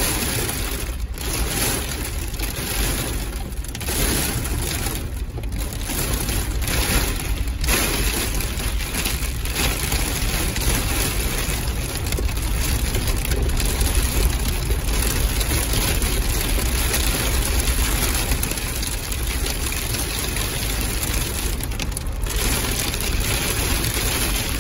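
Heavy rain drumming steadily on an off-road vehicle's windshield and body, over the low rumble of its engine as it drives slowly on a rough dirt trail; heard from inside the cab.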